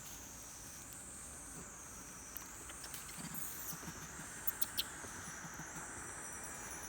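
Outdoor insect chorus: a high buzzing that swells and fades in waves about every two seconds, with three sharp clicks in quick succession a little past the middle.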